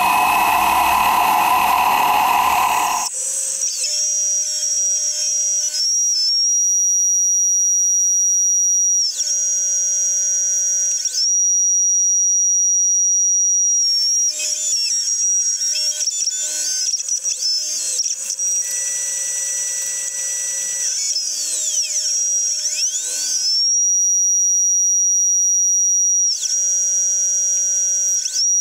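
A CNC benchtop milling machine cutting an aluminum block with a quarter-inch two-flute end mill. A loud hissing rush in the first three seconds gives way to a steady high machine whine that dips and glides in pitch each time the cut or the move changes.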